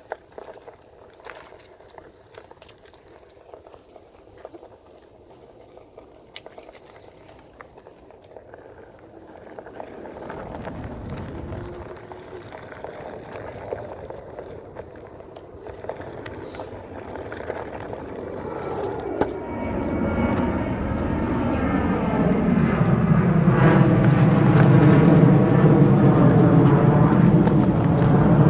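Jet aircraft flying over: faint and distant at first, its drone builds steadily from about ten seconds in and is loud and full for the last several seconds. Faint scattered clicks are heard before it grows.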